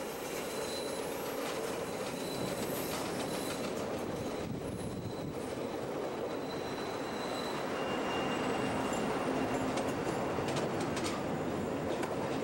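Chicago 'L' elevated train running along curved track, with a steady running noise. The wheels squeal in a thin high tone over the first few seconds. A fainter squeal follows midway, and a few sharp clicks come near the end.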